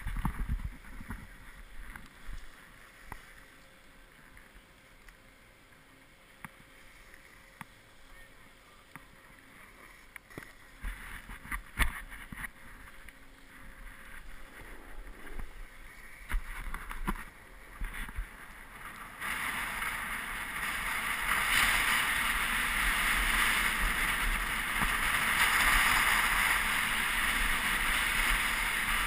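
Snowboard sliding over packed, groomed snow: at first a slow glide with scattered scrapes and knocks of the board and edges, then about two-thirds of the way in a steady loud hiss as the board picks up speed.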